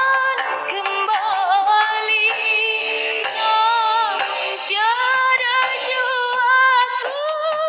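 A young female singer's voice singing a melody with ornamented runs and long, wavering held notes, over musical accompaniment.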